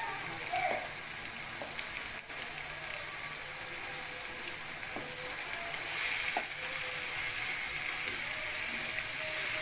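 Fried onions and freshly added tomato purée sizzling in hot oil in a frying pan as a slotted spatula stirs them, with a few light clicks of the spatula on the pan. The sizzle grows louder about six seconds in.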